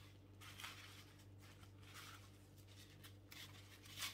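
Very quiet: faint, brief rustles of tissue paper and ribbon being handled and unwrapped, over a low steady hum.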